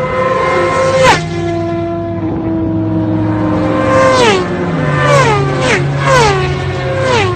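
A BMW S1000RR-series superbike's inline-four engine idling while stationary, blipped hard on the throttle: once about a second in, then four quick revs about a second apart, each pitch shooting up and falling back to idle.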